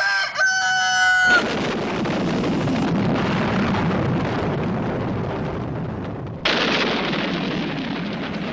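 Logo intro sound effects. A wavering, pitched cry settles on one held note and cuts off about a second in. A long wash of noise follows, renewed by a second sudden hit about six and a half seconds in.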